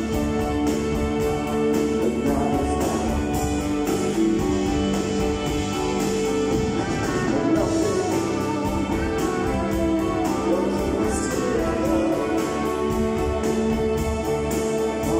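Live rock band playing in a concert hall, with electric guitars and drums under a male lead vocal, heard from the audience seats.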